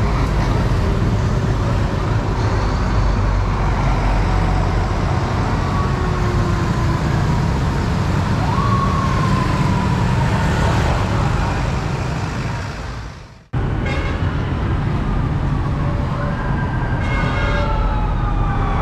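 Sirens of a motorcade escort, their pitch repeatedly sliding downward, over the steady rumble of heavy street traffic and motorbike engines. About two-thirds of the way through, the sound fades out and cuts in again, with more sirens and traffic.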